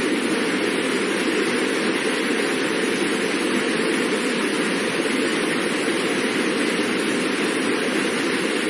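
Fast-moving water rushing, a steady, even noise without a break.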